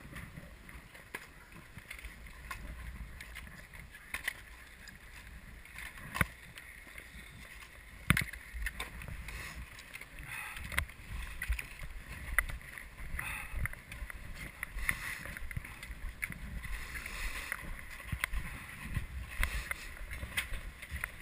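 Skis and ski boots clicking and knocking as skiers step out of their bindings and carry their skis over packed snow, over a low rumble. Faint voices come in from about halfway through.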